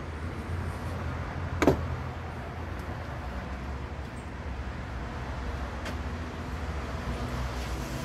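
Hand tools clicking against the outboard's carburetor: one sharp metallic click a little under two seconds in and a fainter one near six seconds, over a steady low hum.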